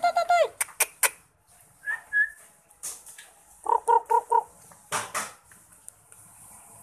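Puppy yapping in quick, rapidly pulsed high-pitched yips: one burst right at the start and a run of about five about four seconds in, with a few sharp clicks in between.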